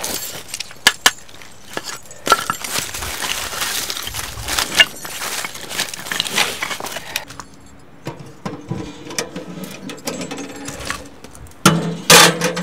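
A knife shaving splinters off a split log, dry wood scraping and crackling with sharp snaps, for about the first seven seconds. Then quieter handling of wood pieces, and near the end a couple of loud knocks with a ringing tone as wood goes into a small metal wood stove.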